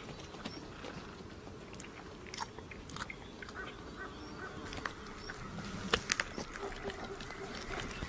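Iberian lynx feeding on a fresh mouflon kill: irregular crunching and tearing at the carcass, with a few sharper cracks about six seconds in.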